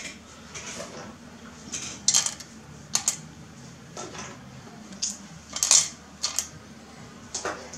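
Metal valve spring retainers clinking as they are handled and set onto the valve springs of a Mazda Miata 1.8L cylinder head: about ten irregular light metal clinks, the loudest about three-quarters of the way through.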